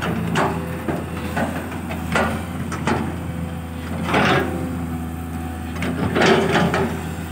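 Kobelco SK200 crawler excavator with its diesel engine running steadily, its bucket scraping and scooping into loose sandy soil several times.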